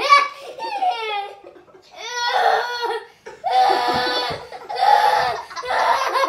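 A child laughing hard: high-pitched, wordless laughter in about five bursts of a second or so.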